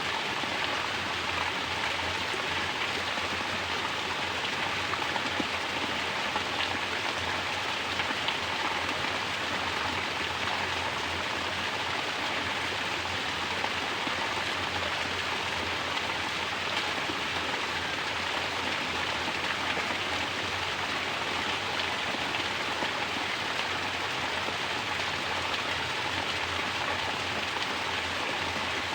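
Mountain water falling steadily in a natural shower, splashing and pattering onto the surface below in an even, unbroken rush.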